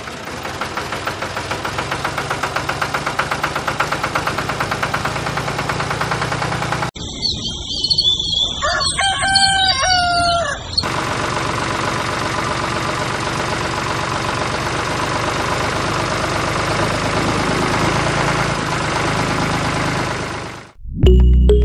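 Small motor of a miniature DIY model tractor running steadily with a fast rhythmic pulse. About a third of the way in it cuts off abruptly, and a rooster crows for a few seconds in long rising-and-falling calls. The running sound then resumes and holds steady until it stops shortly before the end.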